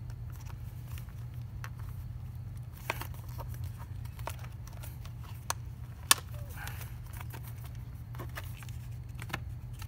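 Scattered plastic clicks and light rattling as a motorcycle's plastic battery case and cover are handled and fitted, with one sharp snap about six seconds in, over a steady low background hum.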